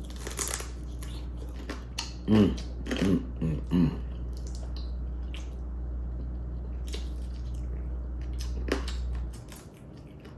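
Close-up eating sounds: chewing and wet mouth sounds with scattered sharp clicks and crunches as crab and corn are bitten and chewed. There are a few short voiced sounds about two to four seconds in. A steady low hum underneath stops shortly before the end.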